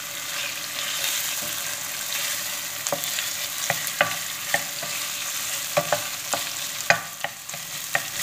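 Diced beef, onions and tomato and pepper paste sizzling as they fry in a stainless steel pot, stirred with a wooden spoon that scrapes and knocks against the pan now and then.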